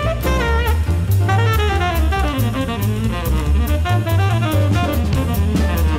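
Background instrumental music: a drum kit keeping a steady beat under a bass line and a running melody.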